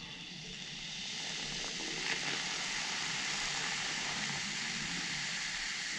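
Electric steam iron hissing and sizzling as it heats up. The hiss grows over about the first second and then holds steady, with a brief tick about two seconds in.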